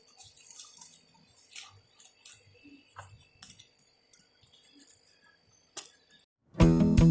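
Hands sifting through hydroponic growing medium to find potatoes: scattered soft rustles and light clinks. Acoustic guitar music starts abruptly near the end.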